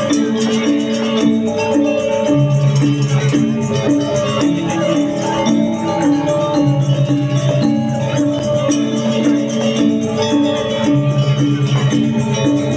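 Balinese gamelan ensemble playing: bronze metallophones strike a fast, even, repeating figure over low notes held for a second or more at a time.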